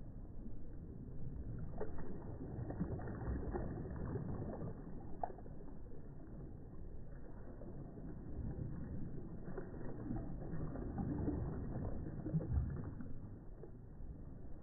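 Small waves washing in softly close by, rising in two gentle swells of surf noise about two seconds in and again near ten seconds, with a faint click or two of water.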